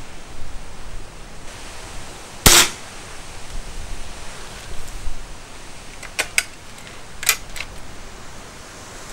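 Weihrauch HW77 spring-piston underlever air rifle firing once with a sharp crack and short ring about two and a half seconds in. A few seconds later come several metallic clicks as the underlever is pulled down to cock the rifle.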